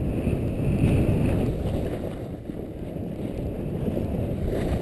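Wind buffeting the microphone of a camera carried by a skier descending through deep powder, a dense, uneven low rumble with the hiss of the skis in the snow.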